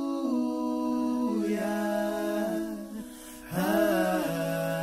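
A solo voice singing long held notes without clear words, stepping between pitches, with a brief dip about three seconds in before the next note comes in.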